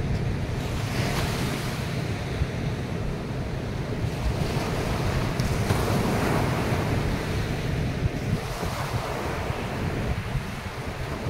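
Ocean surf breaking and washing up a sand beach, swelling several times as waves come in, with wind buffeting the microphone.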